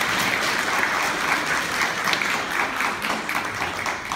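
Small audience applauding. The clapping grows sparser and quieter toward the end.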